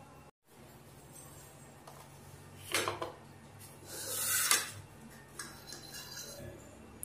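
Kitchen bowls and a steel spoon being handled on a counter: a short pair of clinks about three seconds in, a louder rattling scrape around four seconds in, then a few faint taps.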